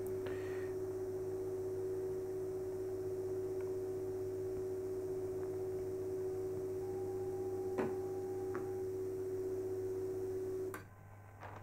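The Chinon DCM-206 image copier's built-in thermal printer running as it feeds out a printout on thermal paper: a steady hum, with a faint click about eight seconds in, stopping shortly before the end.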